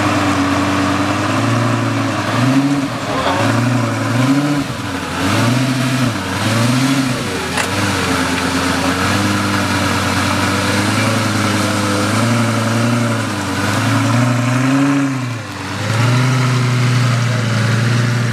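Lamborghini Gallardo's V10 idling, with a run of short throttle blips that rise and fall in pitch, about five in the first seven seconds and several more later on. Near the end it settles to a steady idle.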